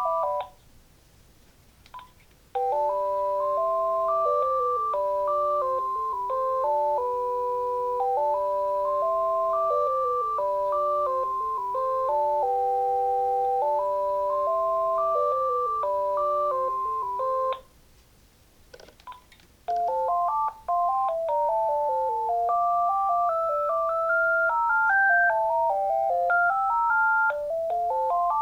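Uniden TCX 905 cordless phone handset playing its built-in polyphonic ringtones one after another. An earlier tune ends just at the start. A slower chord-like melody plays from about three seconds in for some fifteen seconds. After a pause with a few short clicks, a quicker single-line melody begins about twenty seconds in.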